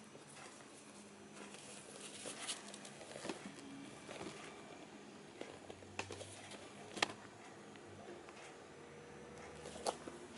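Faint handling noise as hands turn and flex a Converse Jack Purcell sneaker: soft rustles and scuffs of fingers on the shoe's upper and lining, with a few sharp clicks, the loudest about seven seconds in.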